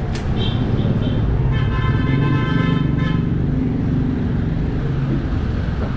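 A vehicle horn blows one steady note for about a second and a half, starting about a second and a half in, over steady street-traffic and engine rumble. A couple of short, higher beeps come just before it.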